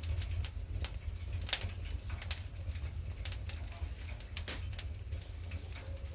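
Fire burning, with irregular sharp crackles and pops over a steady low roar.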